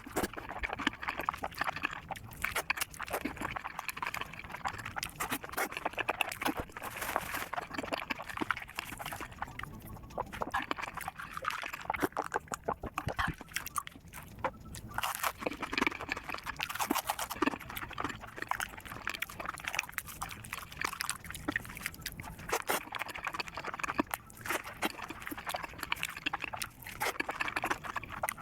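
Close-miked eating of fast food such as a burger, fried chicken and fries: chewing and biting with wet mouth smacking, heard as a dense run of small crackles and clicks.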